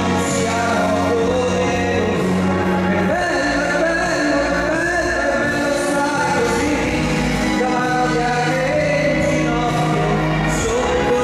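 A man singing a song into a microphone over amplified instrumental music, with long held bass notes under the melody.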